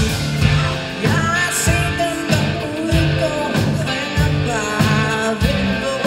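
Live rock band playing: a woman sings lead over electric guitars and a steady drum beat.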